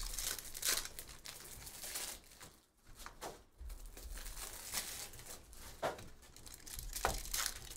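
A trading-card pack's foil wrapper being torn open and crinkled by hand, in a string of irregular crackles, then the cards inside being handled and set down.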